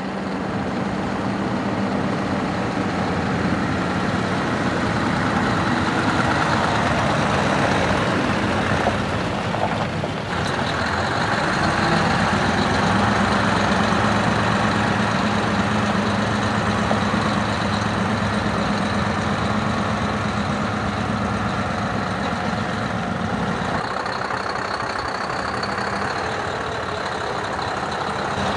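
Scania R620 truck's V8 diesel engine idling with a steady hum.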